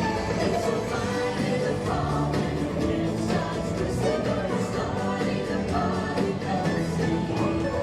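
Parade music with singing voices and a choir, playing steadily.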